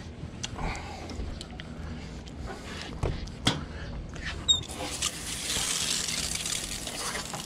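A few knocks and clicks as a mahi-mahi is handled at a cleaning table. A bit past halfway through, a faucet spray nozzle starts hissing as it rinses water over the fish.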